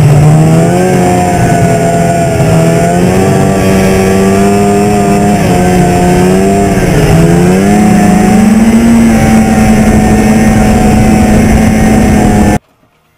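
2002 Arctic Cat Z440 Sno Pro snowmobile's two-stroke engine running while riding, its pitch falling and rising with the throttle, then holding higher. It cuts off suddenly near the end.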